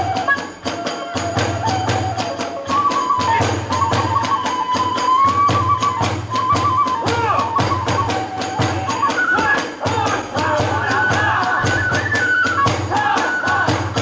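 Hiroshima kagura hayashi in the fast hatchō (eight-beat) style: large and small taiko drums and tebyōshi hand cymbals keep a fast, steady beat while a bamboo fue flute plays the melody above.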